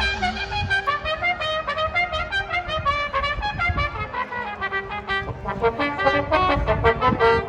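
High school marching band playing, its brass carrying a fast passage of short, separate notes.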